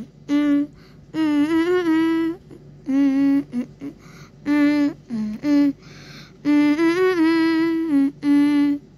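Background music: a wordless hummed melody of short separate notes, with two longer held notes that waver in pitch.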